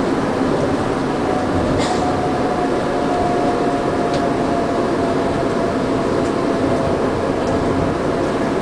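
Osaka Monorail car running, heard from inside the cabin: a steady rumble and hiss of the rubber tyres on the track beam, with a faint motor whine that sinks slightly in pitch as the train nears the station, and a couple of light clicks.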